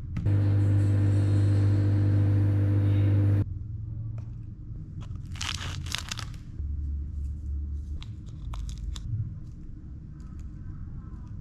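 A microwave oven runs with a loud, steady hum for about three seconds and cuts off suddenly. Then scissors snip through a plastic candy-powder sachet in short crisp cuts, followed by light crinkling of plastic packaging.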